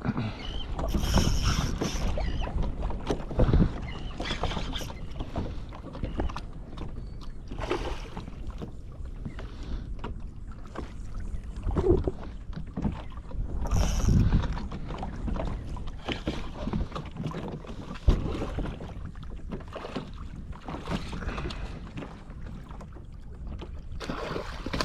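Water sloshing and slapping against a kayak hull as the kayak rocks, with wind on the microphone. Several brief splashy swishes, and one sharp knock about 18 seconds in.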